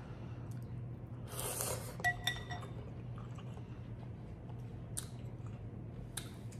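A person eating ramen noodles: a slurp and chewing. About two seconds in, chopsticks clink against a glass bowl with a short ringing, over a low steady hum.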